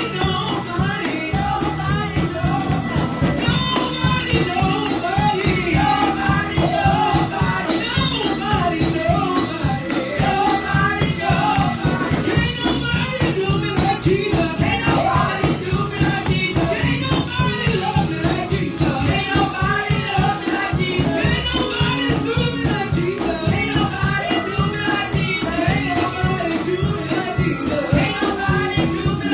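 Gospel music: voices singing together over a steadily shaken tambourine keeping a fast, even beat.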